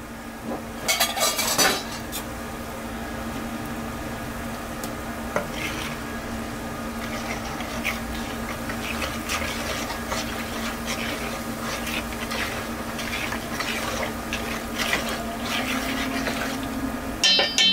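A metal utensil stirring and scraping against cookware, with frequent light clinks over a steady hum. There is a louder clatter of metal about a second in.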